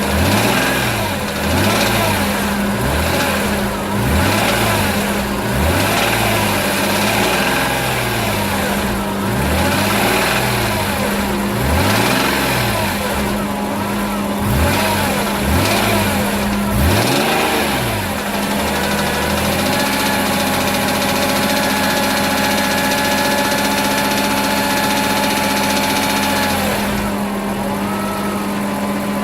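BMW E46 M3's straight-six engine being blipped over and over, about one quick rev a second, and then held at a steady speed for several seconds before it drops back near the end. The owner suspects the engine has developed rod knock.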